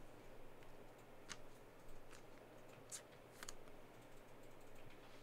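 Faint, scattered clicks and light rustle of glossy Panini Prizm trading cards being handled and flicked, a handful of separate clicks over a low steady hum.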